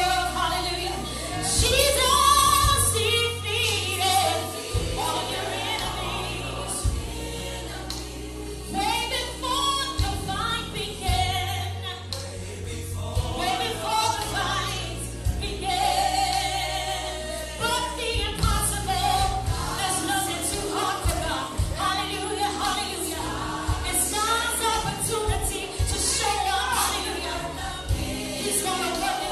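Gospel choir singing with band accompaniment: a bass line moving in held low notes under the voices, with regular drum hits.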